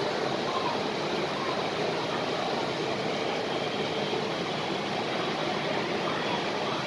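Steady indoor background noise, an even rushing hum, with faint indistinct voices now and then.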